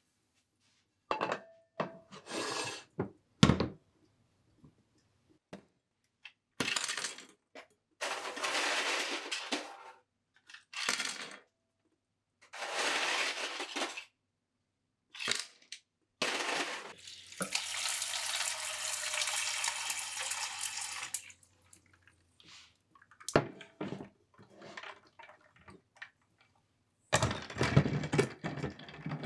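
Kitchen handling sounds while setting up an ice bath: ice cubes clattering into a frying pan in short bursts, then water running into the pan for a few seconds, then clinks and knocks as a glass bowl is set down on the ice.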